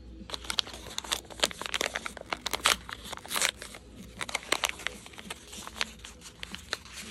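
A small checkered Foodie Mini Brands wrapper being crinkled and peeled open by hand, with dense, irregular crackles starting just after the beginning.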